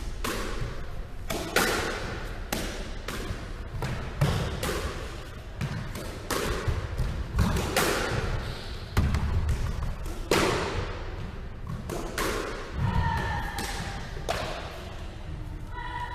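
Squash ball rally: the ball smacked by a racket and hitting the court walls and wooden floor, about one or two sharp echoing impacts a second. A couple of short high squeaks near the end, from sneakers on the wooden floor.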